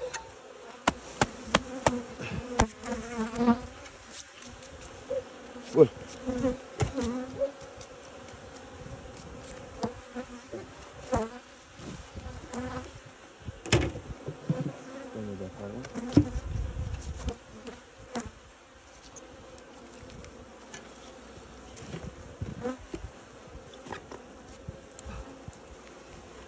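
Honeybees buzzing steadily in an open hive box, with frequent short sharp clicks and knocks from the wooden hive frames being handled, thickest in the first few seconds.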